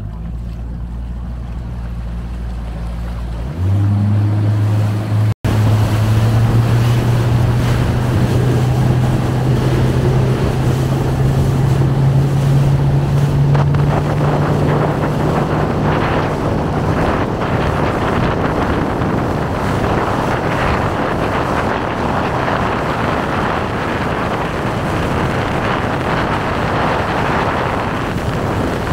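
A motorboat's engine running, its tone jumping louder about three and a half seconds in and then climbing slowly as the boat gathers speed, under wind noise on the microphone and splashing water. Later the engine tone fades and the wind and water noise carry on.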